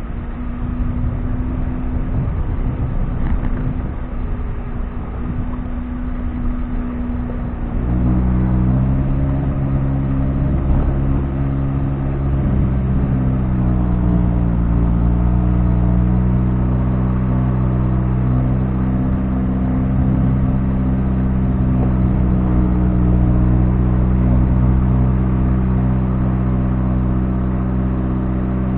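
Vehicle engine running under load while driving off-road: a rough, rumbling noise for the first several seconds, then about a third of the way in a steady engine drone comes in louder, its pitch dipping and rising again briefly before holding steady.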